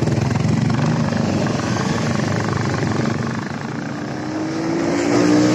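Motorcycle engine running on the move with heavy wind and road noise; in the last couple of seconds its pitch rises steadily as it accelerates.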